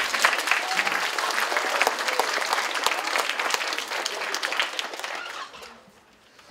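Audience applauding, the clapping fading out about five and a half seconds in.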